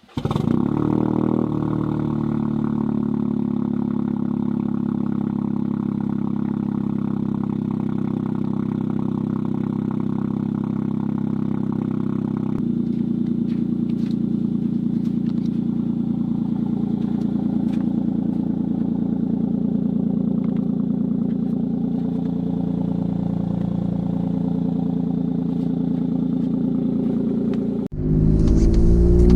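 Cold start of a Toyota GR Corolla's turbocharged 1.6-litre three-cylinder engine through an aftermarket FI exhaust. The engine catches at once, flares briefly, then settles into a steady fast cold idle, and the idle note steps down about twelve seconds in. Near the end a louder engine note rising in pitch takes over.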